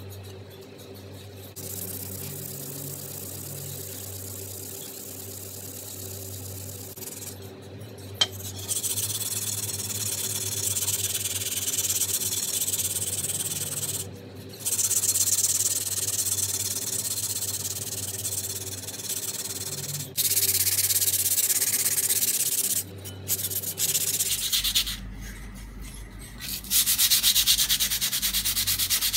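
Rust being scrubbed off a carbon-steel cleaver blade by hand with an abrasive: runs of scratchy back-and-forth rubbing with several short pauses, louder in the second half.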